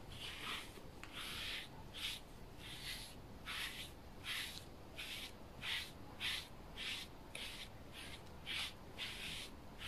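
A brush drawn through a tabby cat's fur in repeated short swishes, about two strokes a second.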